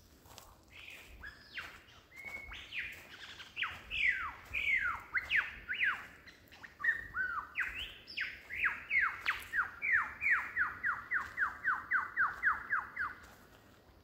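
Superb lyrebird singing: a run of loud, varied, clear whistles sweeping downward in pitch, ending in a rapid series of about a dozen identical falling notes at about four a second.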